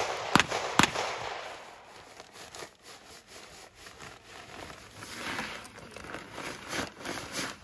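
Gunshots: two sharp cracks within the first second, then a few fainter shots over the next seconds. Plastic bag rustling near the end.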